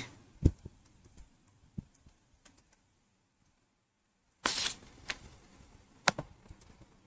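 A few faint, scattered clicks from a computer mouse and keyboard, with a short rustle about four and a half seconds in.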